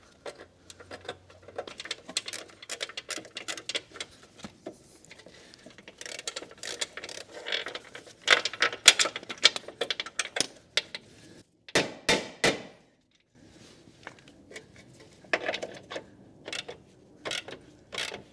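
Bolts and metal parts clicking and clinking as bolts are fed in and started into their threads on a car's front crash bar assembly, with a few louder knocks about twelve seconds in.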